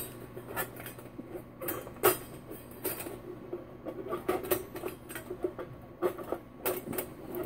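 Sheet-metal panels of a folding camp stove clicking and scraping as its ash pan is worked into the slots by hand: light, irregular taps with a few sharper clicks.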